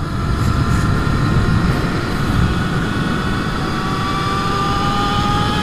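Brammo Empulse R electric motorcycle accelerating hard in first gear: a thin electric motor whine rising slowly in pitch over heavy wind rush on the helmet camera.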